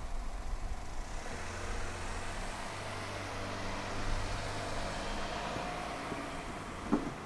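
A car passing slowly through a street intersection, its engine a steady low hum that swells and then fades. A short sharp knock comes near the end.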